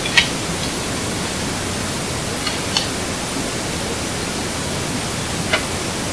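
Steady hiss with three short, sharp crackles: one just after the start, one near three seconds in and one about five and a half seconds in.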